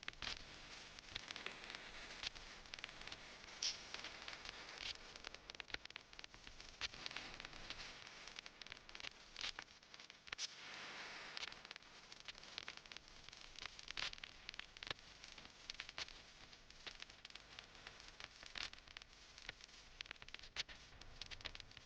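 Faint, irregular small clicks, taps and scraping of hand tools working on a smartwatch during repair.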